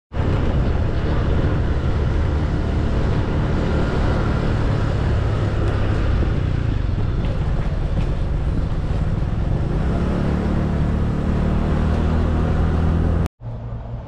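Loud, steady mechanical running noise: a low hum under an even rushing haze, cutting off suddenly near the end.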